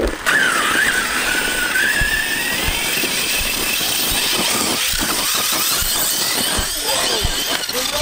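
Arrma Kraton 6S BLX RC truggy's brushless motor and drivetrain whining at full throttle, the pitch climbing over the first few seconds as it speeds away, over a hiss of tyres on loose dirt.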